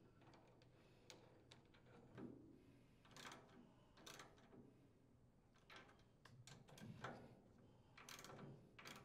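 Faint clicking of a socket ratchet turning the carburetor mounting screws into the small engine's cylinder head, in short irregular bursts, with light metal handling knocks.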